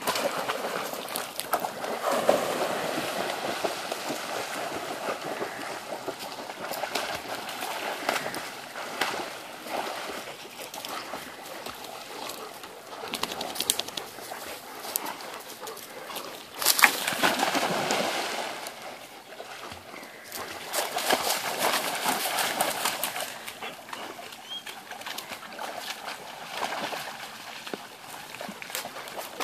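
Dogs splashing through pond water as they swim and wade, with several louder surges of splashing.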